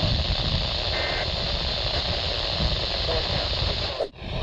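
Radio receiver static: a steady, heavy hiss with low rumble, broken about a second in by a short burst of high steady beeping tones. Near the end the signal cuts out sharply for a moment.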